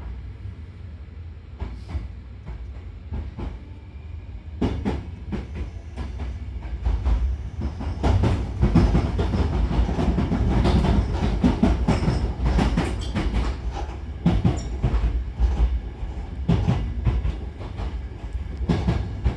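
Hankyu Kobe Line train running, with a steady low rumble and wheels clacking over rail joints; the noise grows louder about eight seconds in.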